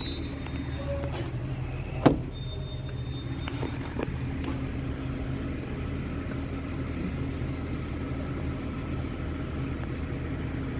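Steady low mechanical hum of a running machine, with one sharp clank about two seconds in.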